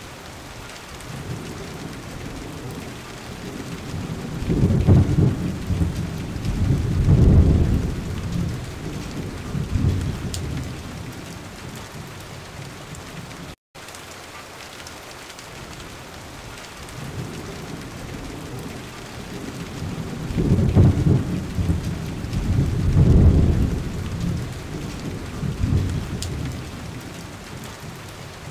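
Rain-and-thunder ambience: a steady rain hiss with low rolls of thunder building about 4 to 10 seconds in. After a brief dropout near the middle, the same pattern repeats from about 20 seconds in, as a looped soundtrack does.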